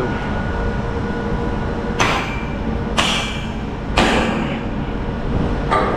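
A sledgehammer strikes a steel connecting pin on a tower crane three times, about a second apart, each blow ringing, over a steady engine hum. The pin is tapped while the crew listens for a change in tone as the crane takes the weight.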